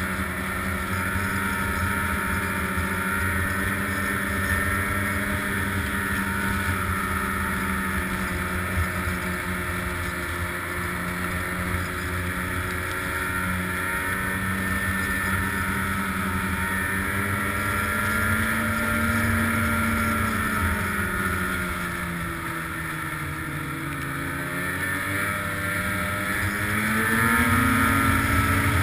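Snowmobile engine running steadily under way, its pitch sinking as it slows about three-quarters of the way through, then rising and getting louder as it speeds up again near the end.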